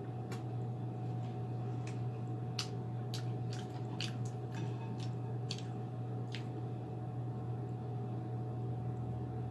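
Close-up wet chewing and lip-smacking of someone eating, a dozen or so sharp smacks scattered through the first two-thirds, over a steady low hum.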